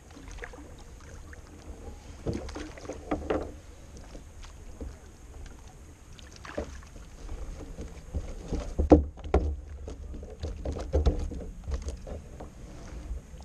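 Scattered knocks, clicks and rattles of fishing gear and paddle being handled aboard a kayak, over a steady low rumble. The loudest knock comes about nine seconds in.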